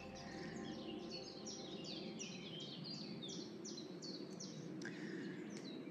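A songbird singing a long, even series of short notes, each sliding down in pitch, about three a second.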